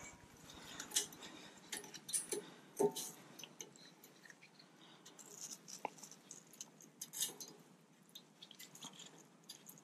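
Faint metallic clicks and scrapes of a brake pad being worked into the caliper bracket against its spring-loaded metal retainer clips, with several sharper ticks spread irregularly through it.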